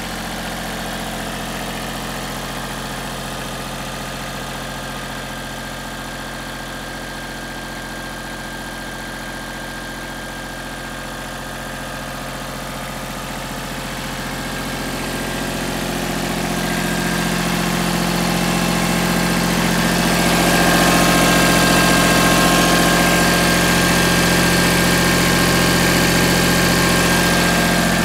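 Iseki 2160 compact tractor's diesel engine running steadily at an even speed, growing louder from about halfway through.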